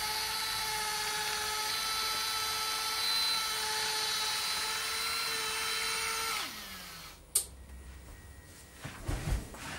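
Electric OO gauge model railway turntable's small motor whining steadily as it turns the bridge with a locomotive on it, then falling in pitch and stopping about six and a half seconds in. A sharp click follows, then a few soft low thumps near the end.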